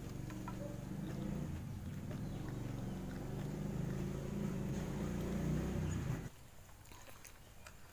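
A motor running with a steady low hum, which cuts off suddenly about six seconds in.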